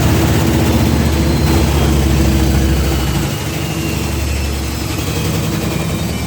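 New Indesit washing machine running on spin, a steady low hum with a rapid rattle from the shaking drum; the level drops slightly about three seconds in, and faint falling whines follow. The knocking and shaking come from the transport bolts left in at the back.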